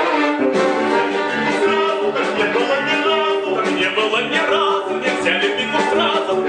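Live theatre orchestra playing a continuous musical number.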